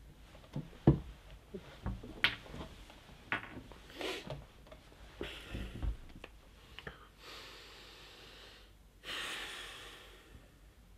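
A man's breathing close to the microphone: short snorts and gasps with small knocks and rustles of movement, then two longer breathy exhalations near the end.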